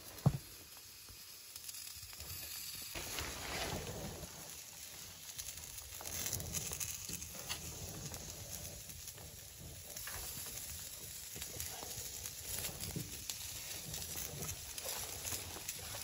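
Raw chicken wings being laid one by one onto a wire grill basket on a wood stove: soft, irregular handling noises and light rattles of the wire over a faint steady hiss.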